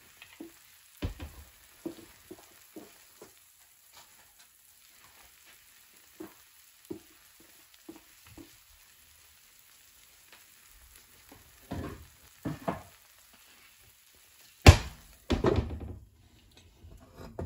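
Scrambled eggs with cheese sizzling faintly in a nonstick pan, with scattered small pops and ticks. About fifteen seconds in comes a sharp, loud clack, the glass pan lid being set on the pan, followed by a few more clatters.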